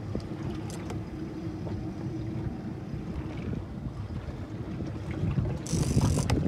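A boat's engine running steadily, with wind buffeting the microphone. A brief hiss cuts in just before the end.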